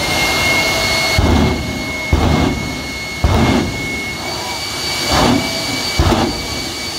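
Boneshaker jet truck's jet engine running with a steady high whine, afterburner lit, while about five deep thumps, irregularly spaced roughly a second apart, come as fireballs shoot from its two stacks.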